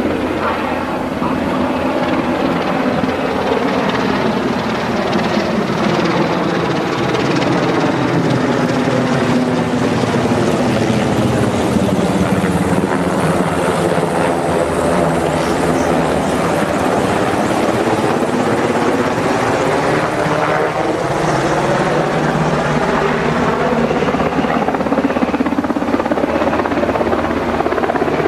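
Helicopter rotor and engine noise, loud and continuous, its pitch sliding slowly up and down as it moves about overhead.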